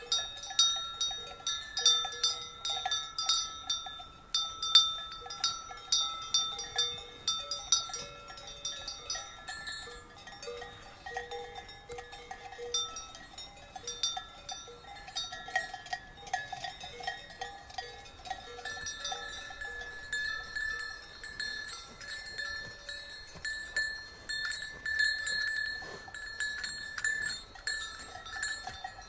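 Cowbells on grazing cattle clanking irregularly as the animals move, more than one bell at different pitches. The strikes come thick in the first ten seconds, thin out in the middle and pick up again in the last third.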